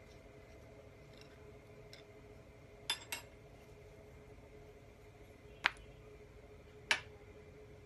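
Small metal parts of a micro scraper clicking against each other as they are handled and fitted: two sharp clicks in quick succession about three seconds in, then two more single clicks about a second apart later, over a faint steady hum.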